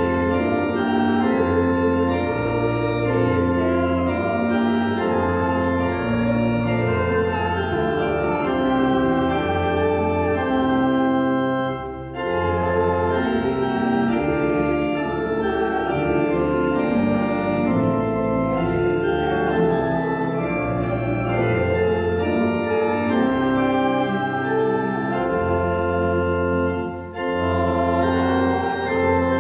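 Church organ playing a slow piece in held chords, with brief breaks between phrases about twelve seconds in and again near the end.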